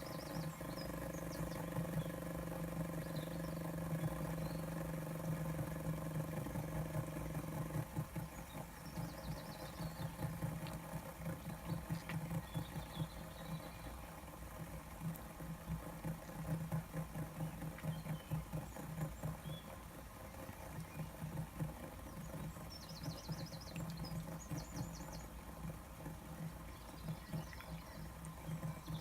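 Fidget spinner spinning on its bearing, giving a steady whirring hum; about eight seconds in the hum turns into a fast flutter.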